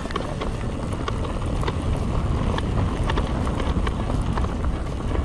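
Wind buffeting the microphone and tyre rumble as an electric mountain bike rides a rough track, with scattered small clicks and rattles from the bike.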